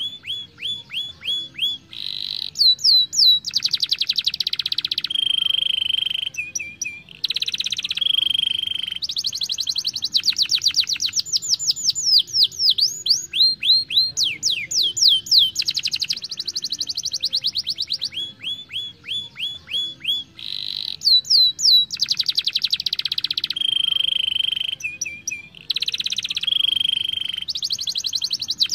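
Young canary singing a fast, unbroken song of rolling trills: one run of rapidly repeated notes after another, the runs changing speed and pitch every second or two.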